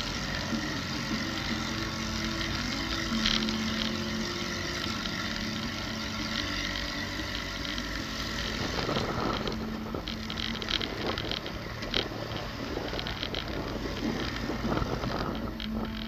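SUV driving slowly over sand: the engine runs steadily under rumbling tyre and body noise. About halfway through it turns rougher, with many short crackles and knocks as the wheels go over a rutted sand track.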